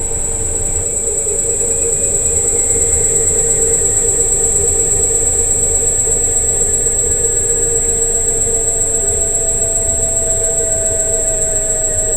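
Electric scooter's motor whining as it rides, with a constant high whine, a hum and a tone that rises slowly as it picks up speed, over a low rumble.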